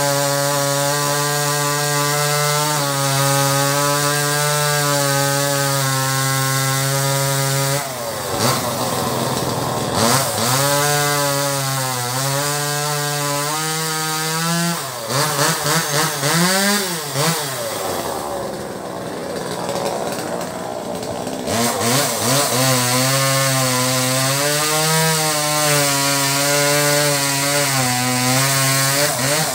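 Newest 258 two-stroke chainsaw on a new Husqvarna chain cutting old teak. The engine runs at high revs under load, its pitch sagging and recovering several times as the chain bites into the wood, with the deepest dip a little past the middle.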